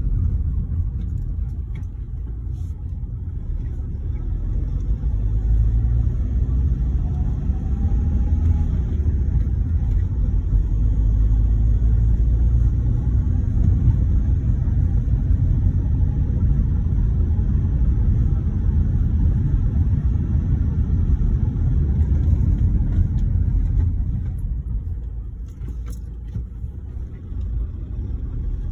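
Steady low rumble of a car driving, heard from inside the cabin: road and engine noise. It eases off for a couple of seconds near the end.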